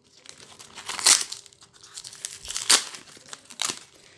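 Gift packaging being unwrapped by hand: paper and plastic wrapping crinkling and tearing, with three loud rips or rustles about a second, two and three-quarter seconds, and three and a half seconds in.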